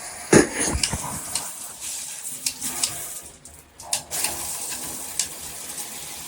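Shower head spraying water in a steady hiss, with a loud knock about half a second in and several clicks and knocks as the head is handled and switched between spray modes.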